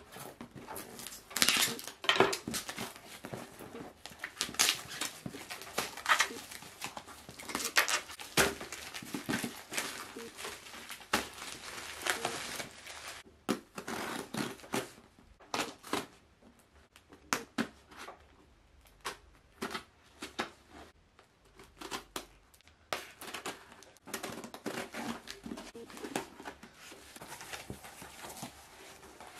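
Parcel being unpacked by hand: plastic wrap crinkling and tearing, packing tape slit with a blade, and cardboard flaps scraping and creaking open. Many sharp, irregular crackles and rips, busiest in the first half and sparser toward the end.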